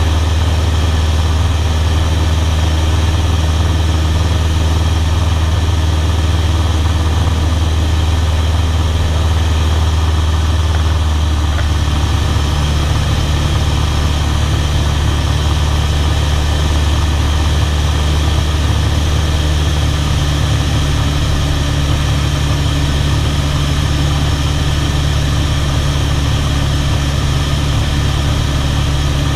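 Cessna 152's four-cylinder Lycoming engine and propeller droning steadily in cruise, heard from inside the cockpit, with wind noise over the cabin. The engine note shifts slightly about twelve seconds in.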